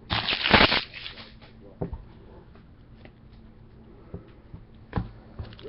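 Trading cards and pack wrappers being handled: a short, loud rustle of cards sliding at the start, then a few light taps as cards are set down.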